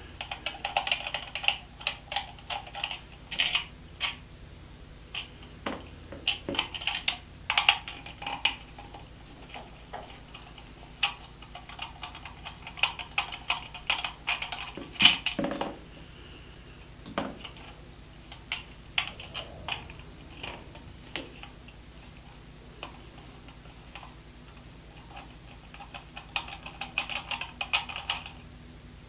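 Ratcheting screwdriver clicking in runs of rapid small ticks as security screws are backed out of a plastic multi-socket adapter housing, pausing between screws. A sharper knock of plastic or metal comes about halfway through.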